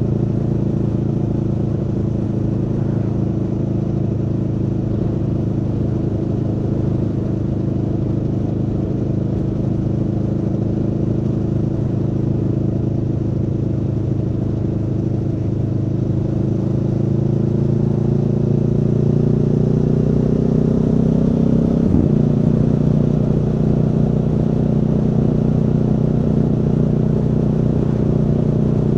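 Aprilia Tuono V4's V4 engine running under way, its note climbing slowly as the bike accelerates, then dropping at a gear change about 22 seconds in and holding steady after.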